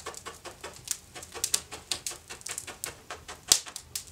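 Wood fire in an open brick fireplace crackling: a quick, uneven run of small sharp snaps with an occasional louder pop, one of them about three and a half seconds in.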